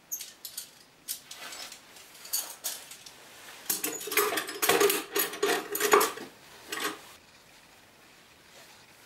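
Small metal tools clinking and clattering as they are set down on a wooden cabinet shelf, with a cluster of louder knocks and rattles about four to seven seconds in.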